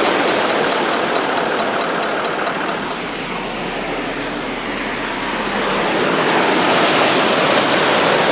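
Surf breaking and washing up the beach: a steady rushing noise that eases a few seconds in and builds again.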